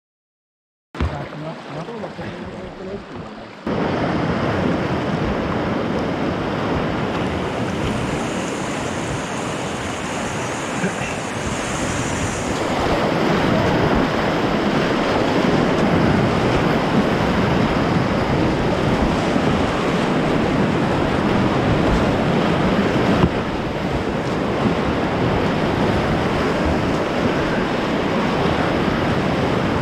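Whitewater rapids rushing and crashing around a kayak, heard up close in the spray; silent for about the first second, then the water noise starts and grows louder a few seconds in.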